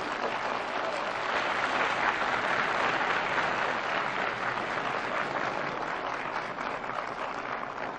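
Audience of many people applauding, a dense steady patter of hand claps that fades a little toward the end.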